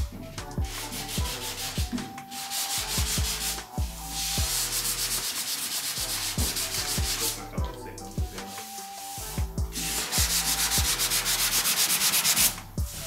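Hand sanding with a sanding sponge on filler over a pickup truck's steel door: rapid back-and-forth scrubbing strokes in several runs, with short pauses between them.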